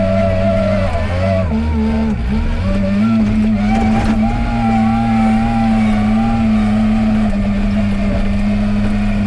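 Wheel loader's diesel engine running steadily at working revs, with a higher whine that wavers in pitch above it. The engine note dips briefly about two seconds in, then picks up again.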